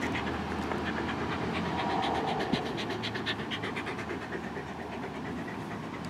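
Shetland sheepdog panting close up: a quick, even run of short breaths.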